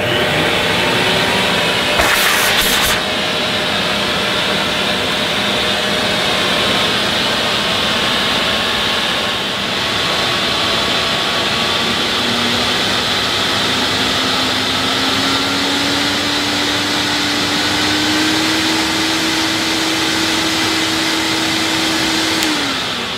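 Hoover Sensotronic System 3 vacuum cleaner motor running, its speed stepped up from the remote-control handle from setting one to the full 1000-watt setting 5, with the motor's pitch rising as it speeds up. Near the end it is switched off and starts to run down.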